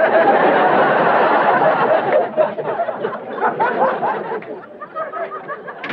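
Audience laughter, loudest over the first couple of seconds and then tapering off into scattered chuckles.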